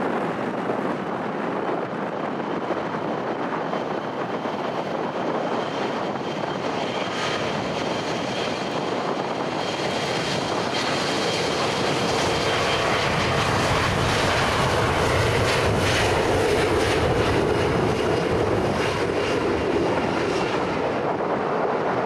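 Aircraft engine noise with a faint steady high whine. It builds to its loudest about two-thirds of the way through, then eases off as the aircraft passes.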